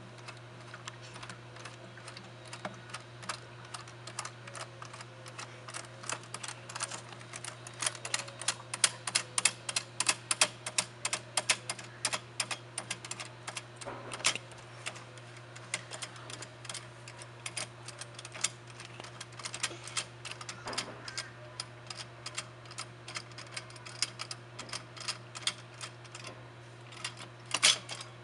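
Rapid, irregular clicking as the knob on the pool pump's metal clamp band is twisted and unscrewed by hand along its long threaded rod.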